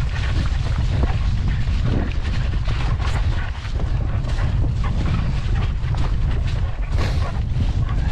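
Wind buffeting an action camera's microphone as a mountain bike rides a wet, boggy moorland track, with the bike rattling over rough ground and the tyres splashing through mud and puddles.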